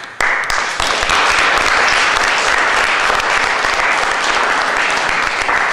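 Audience applauding: dense clapping that starts abruptly and holds steady.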